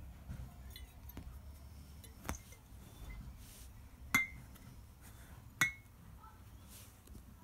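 Glass Coca-Cola bottles clinking three times as they are handled and set down side by side: a light click about two seconds in, then two louder clinks with a short glassy ring.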